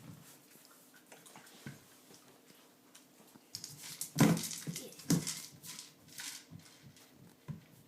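A puppy working a treat-dispensing toy: dry kibble rattling inside it and the toy knocking and clattering on the floor. The loudest knocks come about four and five seconds in.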